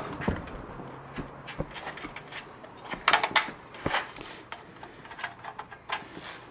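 Scattered light clicks and knocks from hands handling the tiller's metal handle bracket and its bolts, with a quick cluster of sharper metallic clinks about three seconds in.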